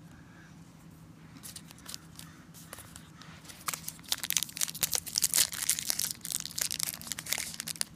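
Foil wrapper of a Momentum NFL trading card pack crinkling and tearing as fingers pull it open. The crackles start faint and turn louder and denser about halfway through.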